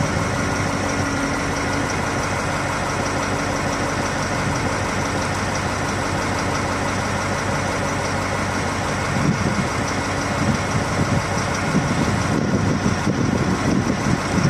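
KamAZ truck's common-rail diesel engine idling. About nine seconds in, and again near the end, the running turns rough and uneven: the knock and jerking that the crew tie to low fuel-rail pressure.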